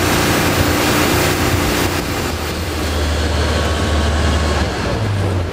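A rescue boat's engine runs steadily under way with a low hum, while water and spray rush and hiss past the hull. The rushing eases after about two seconds as the boat slows.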